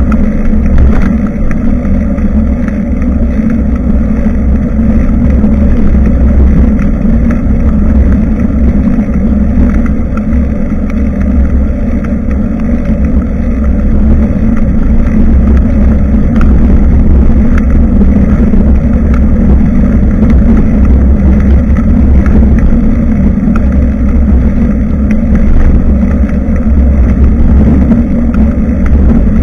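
Loud, steady low rumble of wind buffeting the microphone of an action camera on a moving bicycle.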